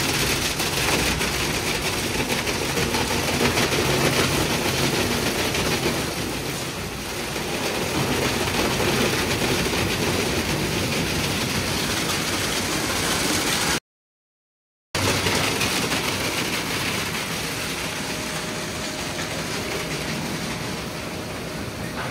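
Sonny's conveyor car wash tunnel running: Erie soft-cloth brushes spinning and scrubbing against a wet car amid water spray, over a low steady machinery hum. The sound breaks off for about a second midway.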